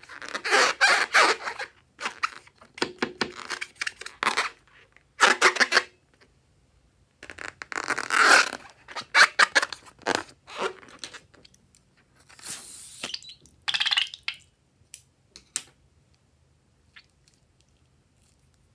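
A slime-filled rubber balloon being squeezed and peeled open by hand over a glass bowl of slime, in irregular bursts of crinkling, rubbing and squishing. The bursts grow sparse and faint over the last few seconds.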